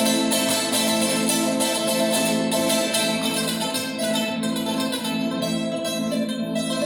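Acoustic plucked string instruments playing live music: a steady stream of rapidly picked and strummed notes with sustained ringing tones.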